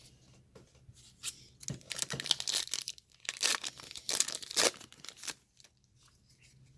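Trading-card pack wrapper being torn open and crinkled by hand: a run of rough tearing and crinkling rustles from about two seconds in until about five seconds in.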